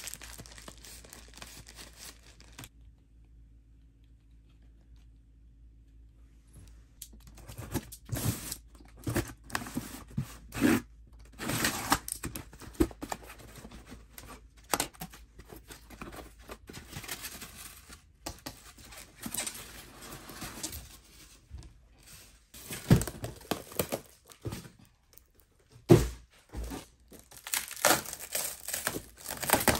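Packaging being opened by hand: a cardboard shipping box torn open and plastic wrap crinkling, in irregular rustling bursts after a few quiet seconds, with a couple of sharp thuds in the second half.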